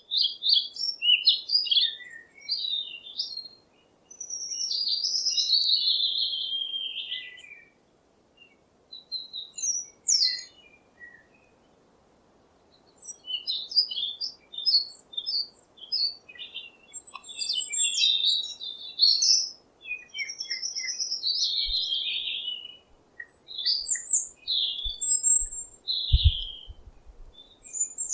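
Songbirds chirping and singing: bursts of high chirps, trills and warbled phrases with short pauses between them.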